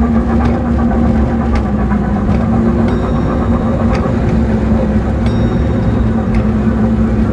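Small amusement-park ride train running along its narrow track: a loud, steady mechanical hum and rumble from the drive, with scattered clicks and rattles as it rolls.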